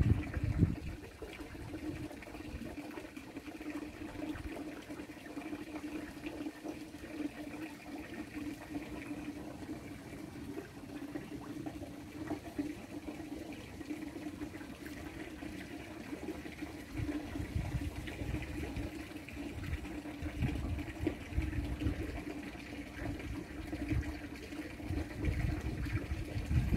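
Water running steadily, with a steady low hum underneath and a few louder low rumbles in the second half.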